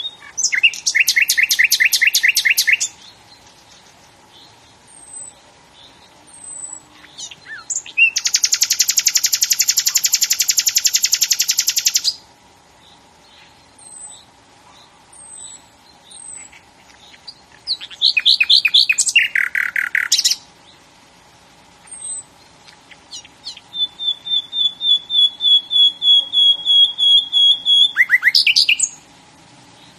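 Bird song: a songbird sings four loud phrases of rapid repeated notes and trills, the last a long run of evenly repeated notes. Short, faint, high chirps come in between.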